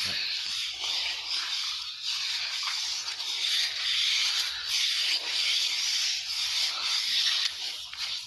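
Barber's ASMR massage: repeated rubbing strokes over the client's skin. It is heard as a rough hiss that swells and fades about once a second.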